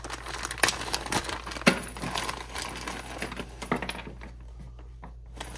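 A clear plastic bag of small hardware parts being opened and handled: the plastic crinkles and the loose parts clink and rattle against each other in scattered clicks, quieter near the end.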